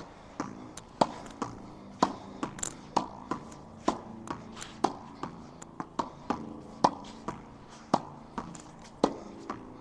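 Tennis ball volleyed against a wall in a steady rally: sharp pops of the ball on the racket strings alternating with knocks of the ball on the wall, about two a second.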